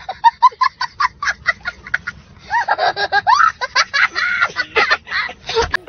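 A young child laughing hysterically: quick short bursts of laughter about five a second for the first two seconds, then after a brief pause a longer, louder stretch of shrieking laughter.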